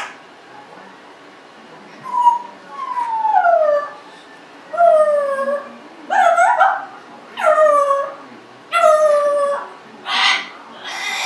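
Congo African grey parrot giving a run of about eight drawn-out calls, starting about two seconds in. Each call slides down in pitch, lasts under a second and is followed by a short gap.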